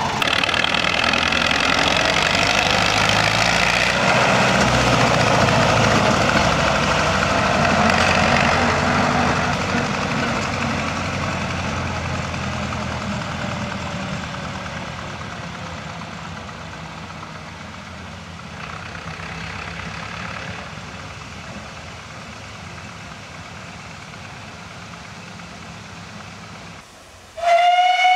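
Small narrow-gauge diesel locomotive's engine running as it pulls away along the track, growing steadily fainter as it recedes. Near the end, a steam locomotive's whistle cuts in, loud and steady.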